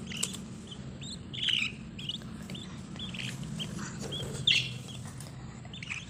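Pet lovebirds chirping: short, high chirps about two a second, the loudest about four and a half seconds in.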